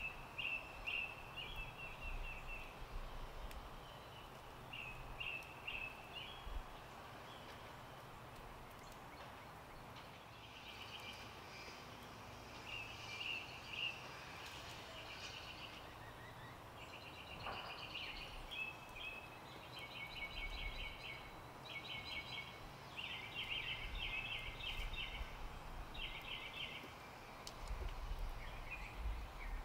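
Wild songbirds singing repeated short, rapid trilled phrases over steady outdoor background noise, the phrases coming more densely in the second half.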